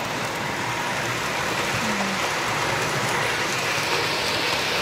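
Model electric trains running on a layout: a steady rolling rattle and hum of metal wheels on the track and the train motors, growing a little louder near the end as passenger cars pass close by.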